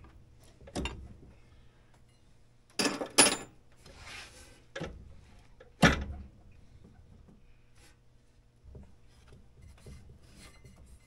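Hands working the clutch and drive belt of a vintage snowmobile: a few sharp knocks, the loudest a quick pair about three seconds in and another about six seconds in, with a short stretch of rubbing and scraping in between.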